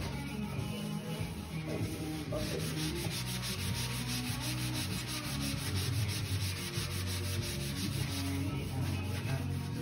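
A cloth rag rubbed back and forth along a cedar board, working wood stain into the grain with steady rubbing strokes.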